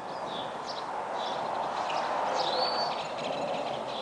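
Birds chirping with short high calls over a steady rushing background noise that grows louder in the middle.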